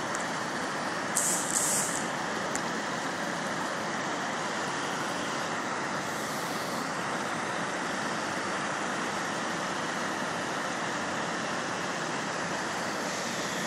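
Steady rushing of flowing river water, with a brief high hiss about a second in.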